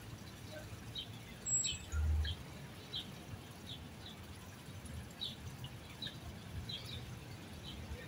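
Small birds chirping, short high chirps repeating about once or twice a second over faint outdoor background noise. Two dull low thumps about two seconds in.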